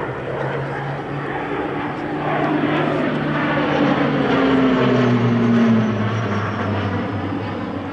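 Pilatus PC-12 NG's single Pratt & Whitney PT6A-67P turboprop engine and propeller droning as the aircraft flies past overhead. It grows louder, its pitch drops as it passes about five to six seconds in, and then it fades away.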